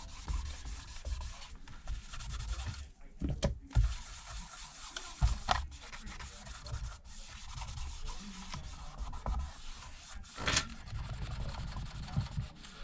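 Lint-free cloth damp with alcohol rubbing and wiping over the inside of an iPad Pro's rear housing, an irregular scratchy scrubbing broken by a few sharp clicks, cleaning off old battery adhesive residue.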